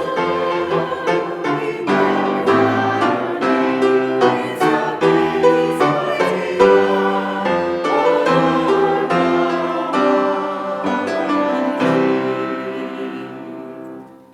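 Piano music in slow sustained chords, the last chord dying away near the end.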